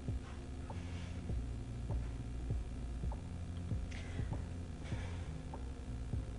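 Low steady hum of room and camera-microphone noise, with faint irregular ticks and a few soft breaths about a second in and again around four to five seconds.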